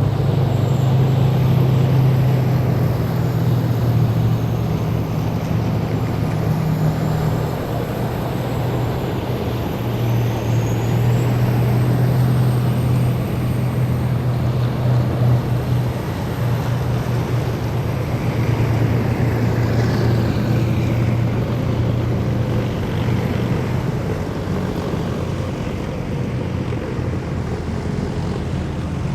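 Heavy military vehicles driving past in a column, their engines giving a loud, steady low drone over the rush of tyres and machinery.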